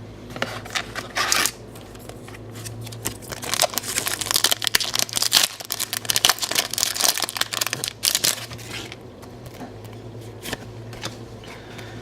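Foil Japanese Pokémon booster pack being torn open and crinkled, and the trading cards inside handled and slid out. A run of irregular sharp crinkles and rustles, densest from about three to nine seconds in and thinning out near the end.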